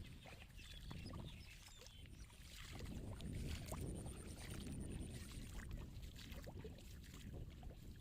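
Water sloshing and splashing in slow swells, with scattered small clicks.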